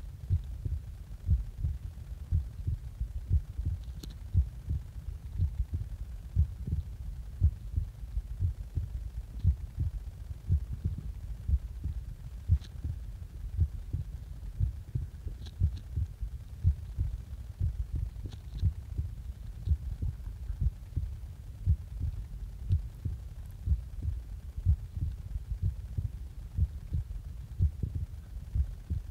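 A person's heartbeat recorded close up through the chest, just after waking: a steady, regular run of low lub-dub thumps.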